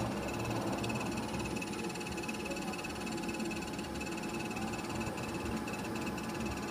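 Steady machinery hum inside a small submersible's cabin, with a faint, rapidly pulsing high tone over it.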